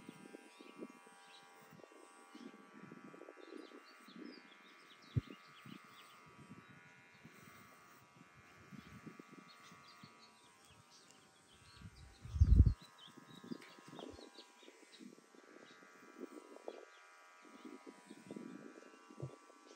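Nova electric hair clippers running with a steady hum as they cut hair. A single dull bump about twelve seconds in is the loudest sound.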